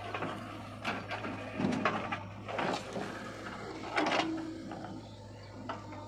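JCB 3DX backhoe loader working: a steady diesel engine hum with irregular scraping, clattering bursts as the bucket dumps soil and bites into earth, loudest about four seconds in, followed by a brief steady whine.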